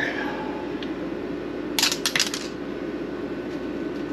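Bent stiff wire probed through a small hole in drywall to feel for blocking in the wall cavity, giving a short metallic clinking rattle about two seconds in, over a steady background hum.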